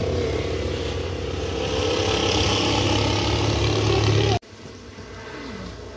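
A motor engine running steadily, growing louder, then cut off abruptly about four and a half seconds in, leaving a quieter background hum.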